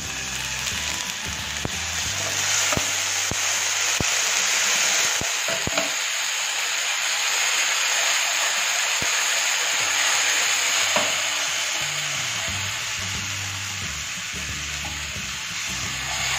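Ginger-garlic paste frying in hot mustard oil in a nonstick pan, sizzling loudly after a little water is added to keep it from burning. A wooden spatula stirs it, tapping the pan a few times in the first half.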